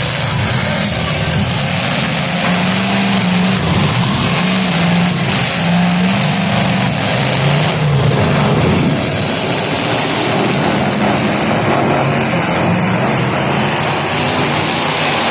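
Demolition derby cars' engines running and revving, rising and falling in pitch, with a few sharp knocks from car-to-car hits.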